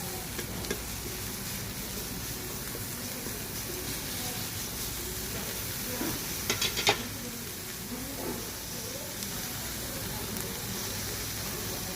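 Minari and pork-belly fried rice sizzling steadily in a hot pan as it is stirred, with a short cluster of sharp clicks about halfway through.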